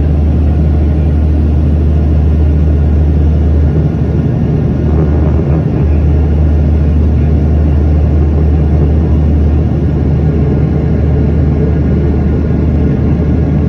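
Steady jet engine and airflow noise inside the cabin of a Boeing 737-700 in flight, heard from a window seat beside its CFM56-7B turbofan: a loud, even, deep rumble.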